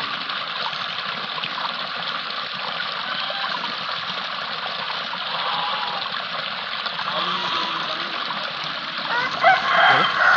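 Water running and splashing steadily. Near the end comes a brief, louder burst of vocal sounds.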